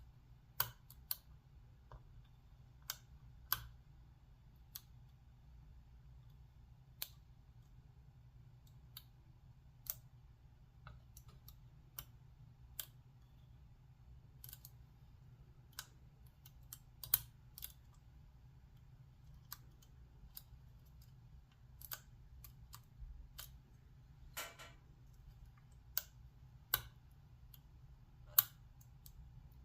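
Lock pick and tension wrench working the spool-pinned cylinder of a 70mm brass Squire padlock: faint, irregular metallic clicks, about one every second or two, with a short scraping rasp about 24 seconds in.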